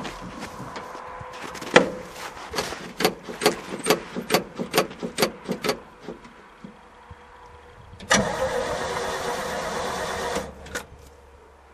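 A quick run of sharp clicks, about four a second for some four seconds. Then the Chevy dump truck's cold 283 small-block V8 cranks on the starter for about two seconds and stops without catching.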